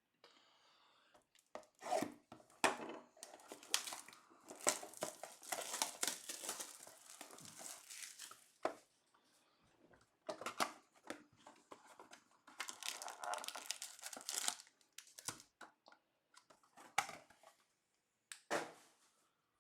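Plastic shrink wrap on a trading-card hobby box being torn open and crinkled in irregular bursts, then a few short separate rustles as the box is handled.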